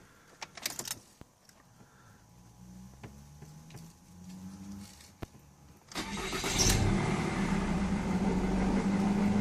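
Ford Mondeo Mk3 engine starting: a few clicks and a faint hum, then about six seconds in the engine catches and settles into a steady idle. It starts cleanly.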